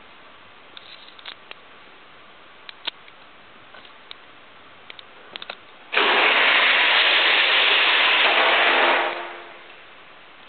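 Four pinewood derby cars released from the starting gate and rolling down a multi-lane aluminium track. A loud, even rumble starts suddenly about six seconds in, holds for about three seconds and fades as the cars run out to the finish. Faint scattered clicks come before it.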